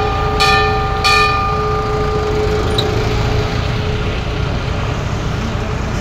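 A metal temple bell struck twice in quick succession near the start, its tones ringing on and fading away over about two seconds, over the steady low rumble of the bus's engine.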